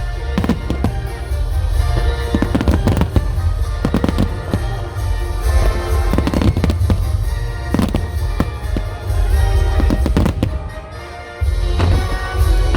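Fireworks grand finale: many rapid aerial shell bursts, one on top of the next, with a deep booming rumble, over music playing along with the show. The bursts thin out briefly about ten seconds in, then come back loud.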